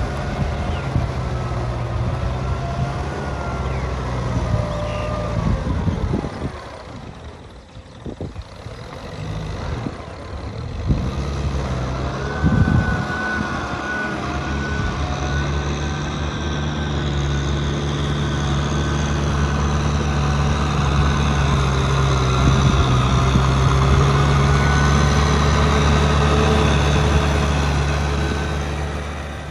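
Kubota tractor's diesel engine running steadily under load while working a rotary tiller through a wet field, a low drone with a high whine over it. It drops quieter about a quarter of the way in, then comes back and grows slowly louder.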